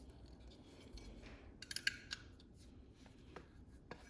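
A few light clicks and rattles of small parts from a disassembled electronic door lock being handled, loudest in a quick cluster about two seconds in.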